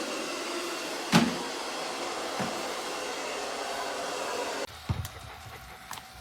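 MAMNV robot vacuum running with its suction fan making a steady whir, with one sharp knock about a second in. The whir cuts off suddenly near the end, leaving quieter room sound with a few light knocks.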